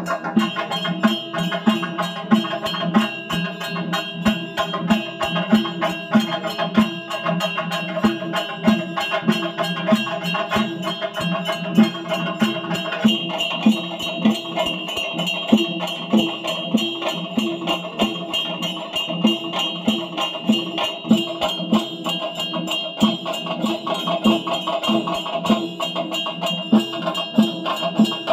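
Traditional temple percussion music: a fast, even beat of drums and struck instruments over a steady ringing tone, going on without a break.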